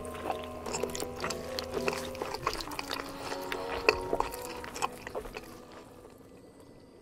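Close-miked chewing and wet mouth sounds of eating roasted chicken drumsticks, many quick crisp clicks, over soft background music with held tones. Both fade out near the end.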